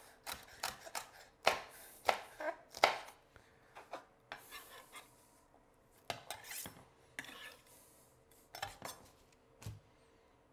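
Chef's knife chopping a poblano pepper on a cutting board: a run of uneven knocks of the blade against the board. About halfway through the blade scrapes the chopped pieces across the board into a bowl, with a few more cuts near the end.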